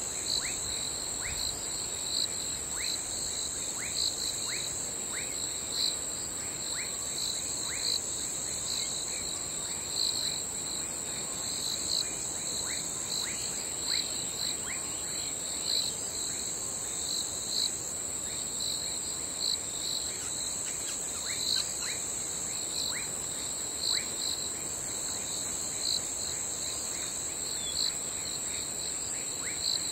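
Crickets and other insects calling together: one steady high trill, a lower chirping that pulses about once a second, and a third trill that switches on and off every few seconds. Short falling peeps come scattered over them throughout.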